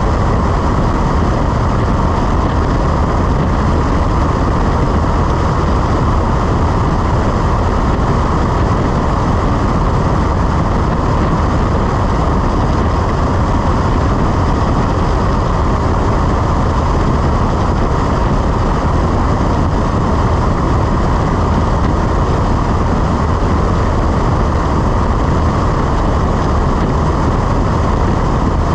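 Cessna 172 in flight, its piston engine and propeller droning steadily with rushing wind noise.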